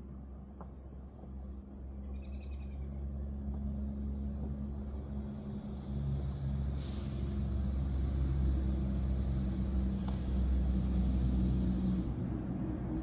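Engine of a 7¼-inch gauge miniature locomotive running steadily, getting louder through the middle. A hiss joins about seven seconds in, and near the end the engine note drops away.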